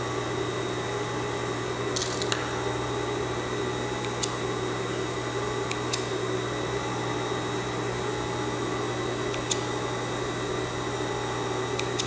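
Steady hum of an industrial sewing machine's motor running while the machine is not stitching, with several sharp snips of small scissors cutting threads.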